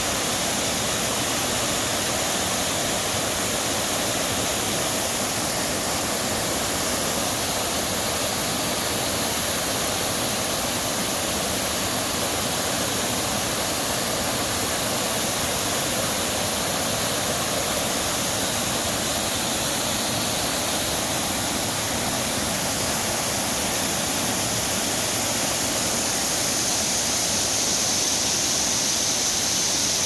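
Rain-swollen mountain stream flowing powerfully over rocks and small waterfalls: a steady rush of water.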